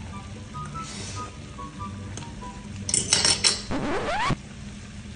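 A metal fork clinks against a stainless steel skillet in a quick cluster of clinks about three seconds in, followed by a short rising tone.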